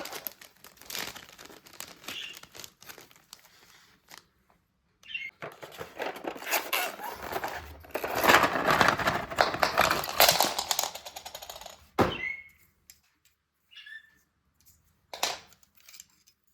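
Packaging crinkling and rustling in spells, with some tearing and light clicks, then a few short high chirps near the end.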